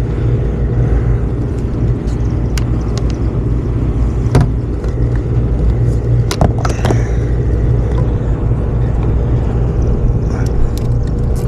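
Commercial rooftop HVAC unit running with a steady low hum. A few sharp clicks and knocks come through as PVC drain-line fittings are handled.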